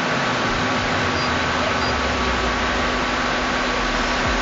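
Steady hum and hiss of shop-floor machinery and ventilation, with a few constant tones running through it. A low rumble comes in about half a second in and cuts off just before the end.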